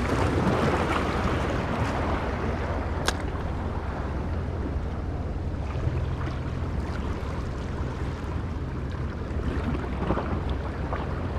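Wind buffeting the microphone with a steady low rumble, over waves washing against the jetty rocks, which swell louder at the start and again near the end. A single sharp click about three seconds in.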